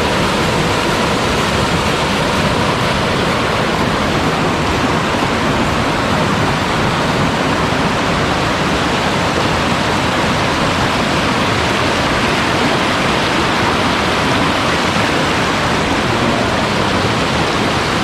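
Steady, loud rush of flowing river water at a jungle pool and falls.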